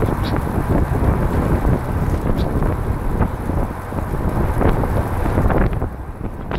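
Wind buffeting the microphone of a camera on a recumbent trike rolling along a paved road: a steady, rough low rumble.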